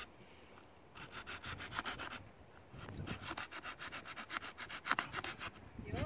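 Multitool blade scraping along a wooden branch, stripping its bark in quick, even strokes. There are two runs of strokes, the first starting about a second in, with a short break at about two seconds.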